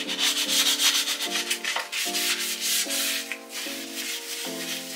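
Quick back-and-forth scrubbing strokes, a brush or sponge rubbing a hard surface, densest in the first second or so and lighter after. Under it runs background music of soft sustained chords that change every second or so.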